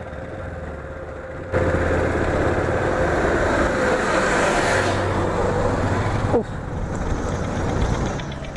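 LML Vespa scooter running along at low speed, its engine a low hum. About a second and a half in, a loud rushing noise with a steady whine sets in for about five seconds and cuts off suddenly, as an oncoming bus passes close by.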